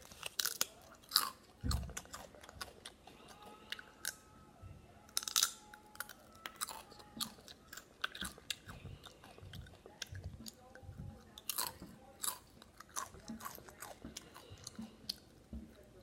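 Chips being crunched and chewed close to the microphone: irregular crisp crackles with each bite and chew, and a dull thump about two seconds in.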